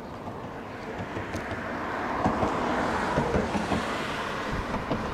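Road traffic passing on the bridge, a vehicle's noise swelling and fading, with wind gusting on the microphone near the end.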